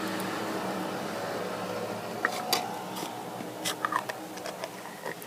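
A spoon tapping against a plate a handful of times, from about two seconds in, while spooning laundry detergent. A steady mechanical hum runs underneath.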